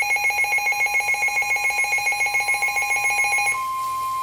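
Midland weather radios sounding their alert alarm, a loud rapid pulsing beep of several high tones together. About three and a half seconds in it gives way to one steady tone near 1 kHz, the NOAA Weather Radio warning alarm tone that comes before a warning message.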